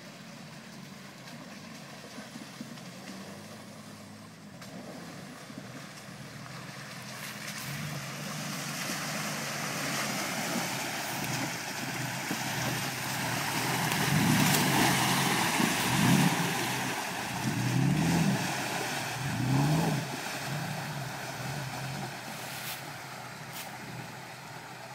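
Ford Ranger pickup driving through a deep mud hole, its engine revving up and down several times with water and mud splashing. It grows louder as the truck comes close, is loudest in the middle with about four revs in quick succession, and fades as the truck drives away.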